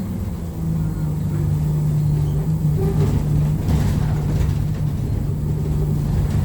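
ADL Enviro200 single-deck bus heard from inside the passenger cabin, its engine and drivetrain running with a steady low hum and rumble.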